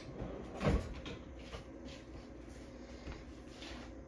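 Faint kitchen handling as a teaspoon of baking soda is measured out with a metal measuring spoon: one soft thump under a second in, then only quiet handling noise.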